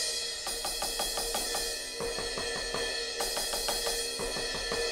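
Electronic crash cymbal sample from a Roland TD-30 module, the bow sound of a 16-inch custom crash, triggered by tapping the bow of a dual-zone CY-14 cymbal pad. Quick repeated strokes, about five a second, over a steady cymbal wash.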